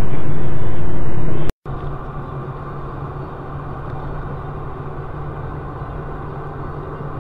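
Car cabin driving noise picked up by a dashboard camera: a steady low engine and road drone. It breaks off briefly about a second and a half in, then continues quieter.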